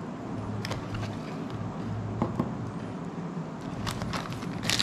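Light clicks and taps of small parts being handled and set down on a wooden table, over a steady low background hum; plastic wrapping starts to crinkle near the end.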